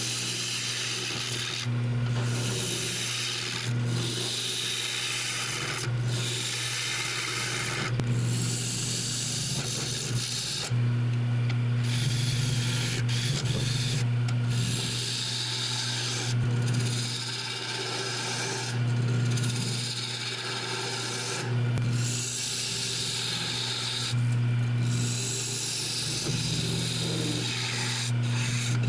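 Jet wood lathe running with a steady motor hum while a carbide turning tool cuts into the spinning wood blank, making a rough scraping rasp. The cutting noise comes in passes, getting louder and fainter and changing abruptly every two seconds or so.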